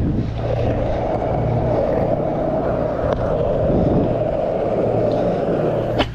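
Skateboard wheels rolling on rough asphalt, a steady gritty rumble. Near the end a single sharp clack comes as the board is kicked up into a flip trick.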